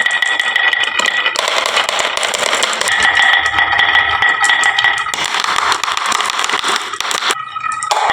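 Many marbles rolling and clattering down a wooden HABA marble run slope: a dense stream of small clicks and rattles with a steady high hum of rolling marbles. The sound changes abruptly a few times.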